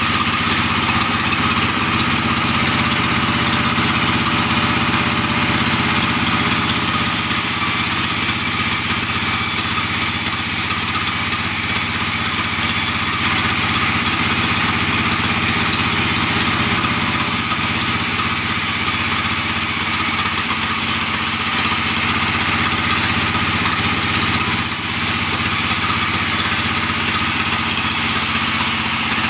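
Large sawmill band saw running steadily as albasia timber is fed through it, a constant mechanical hum with a high hiss above it.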